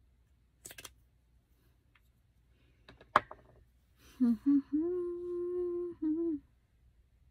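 A woman humming a short phrase of a few notes that ends on one steady held note, about two and a half seconds long. Before it come a couple of brief clicks, the sharpest about three seconds in.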